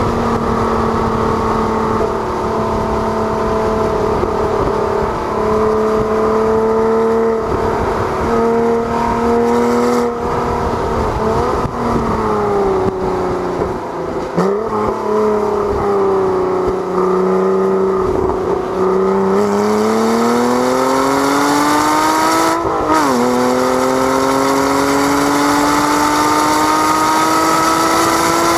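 2012 Porsche Cayman S's 3.4-litre flat-six engine, heard from inside the cabin at track speed. The revs hold steady for about ten seconds, then fall with a couple of brief blips as the car slows through a corner. They climb again under acceleration, drop once in an upshift a little past the two-thirds mark, and climb again, while wind and tyre noise grow with speed.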